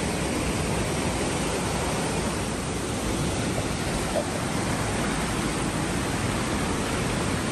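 Steady rushing of a small river's rapids, with water tumbling over rocks and a low weir.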